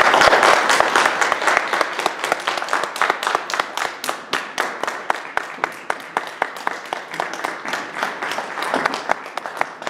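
Congregation applauding, loudest at the start and slowly easing off to steady clapping.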